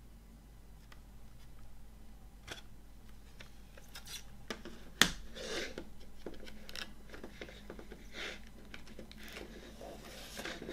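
Plastic CD jewel case being handled and opened: small clicks, then a sharp plastic snap about five seconds in, followed by irregular rubbing, scraping and light clicks of the plastic case on the table.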